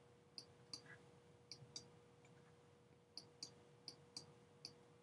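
Faint clicks of typing on a computer keyboard: about a dozen scattered keystrokes, often in quick pairs, over a low steady hum.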